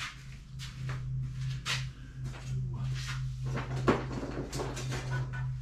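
Scattered knocks and clatter of wood pieces being picked through and handled, over a steady low electrical hum.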